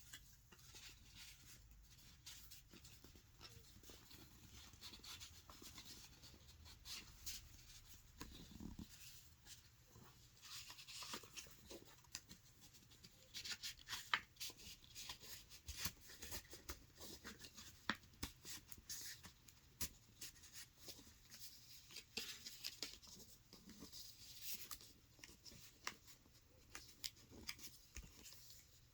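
Faint paper rustling and crinkling with soft ticks and taps, as the pages and paper pieces of a hardbound portfolio book are handled; busier from about ten seconds in.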